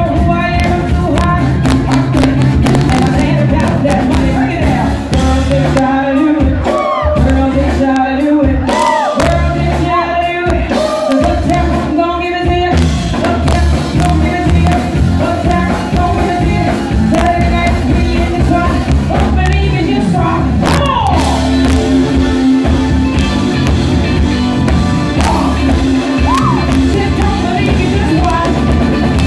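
Live rock band playing loudly, electric guitar and drums under a sung vocal line, with shouts from the crowd mixed in.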